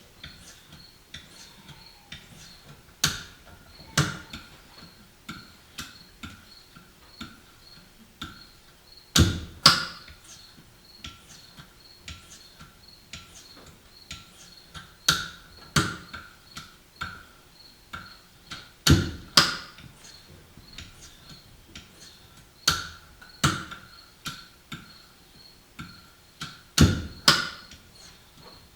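Hand-held honing stone on a KME guided sharpener being stroked along a single-bevel broadhead's edge: light clicks about once a second, with a louder pair of sharp knocks every three to four seconds, each followed by a faint ringing.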